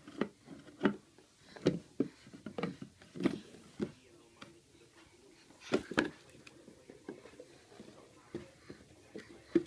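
Toy stacking boxes knocking and tapping against each other and the floor as a toddler handles them: a series of short knocks about a second apart, with a tighter, louder cluster about six seconds in.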